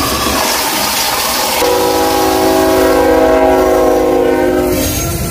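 Diesel locomotive air horn sounding one long steady chord for about three seconds, starting after a rush of noise, with the low rumble of the moving train underneath.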